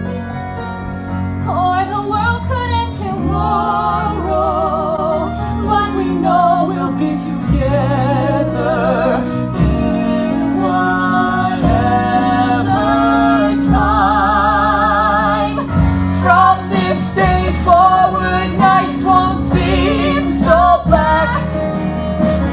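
A woman singing a musical-theatre ballad live, over instrumental accompaniment, with vibrato on the held notes and one long wavering note about two-thirds of the way through.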